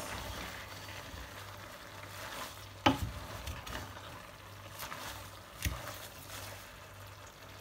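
Wooden spoon stirring sliced pumpkin leaves in an enamel pot: a soft rustle of leaves, with a few knocks of the spoon against the pot. The loudest knock comes about three seconds in, and another just before six seconds.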